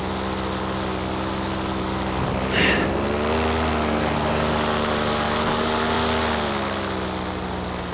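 Paramotor engine and propeller running steadily in flight. About two and a half seconds in the throttle comes up and the pitch rises with a brief rush of noise, then it eases back down near the end.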